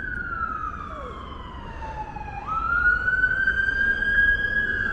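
Emergency vehicle siren wailing: the tone falls slowly for about two and a half seconds, then sweeps quickly back up and climbs slowly, over a low background rumble.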